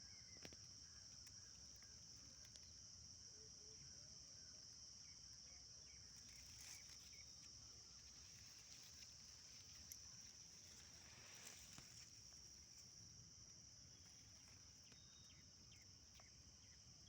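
Faint, steady, high-pitched chorus of crickets, with a few soft clicks scattered through it.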